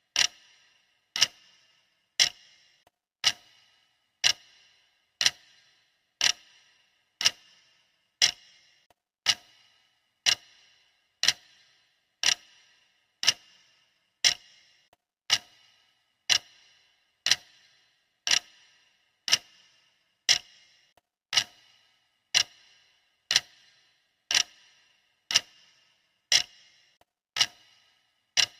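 Clock ticking sound effect: a sharp tick once a second, each with a short, bright ring, steady and even throughout.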